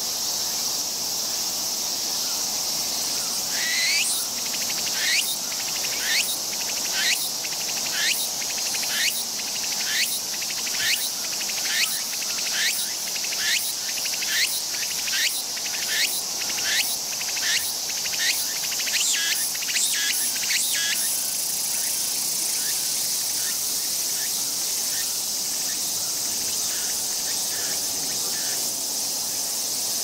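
Tsukutsukuboshi cicada (Meimuna opalifera) singing its repeated rhythmic phrases over a steady high buzz, about one phrase a second. The phrases quicken and then stop about two-thirds of the way through, leaving only the steady buzz.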